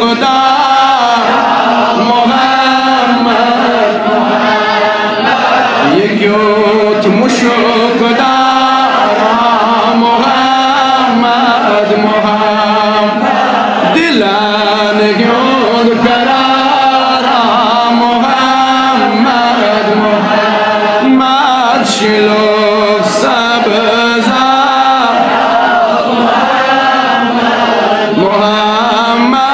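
A man's voice chanting a Kashmiri naat, a devotional song in praise of the Prophet, amplified through microphones. The long melodic lines are ornamented and wavering, over a steady low drone underneath.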